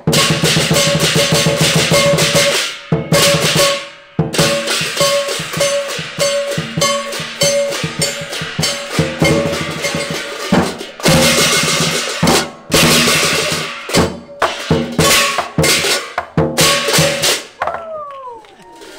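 Chinese lion dance drum beaten in fast strokes with large brass hand cymbals crashing along, broken by a few short pauses. The playing stops near the end.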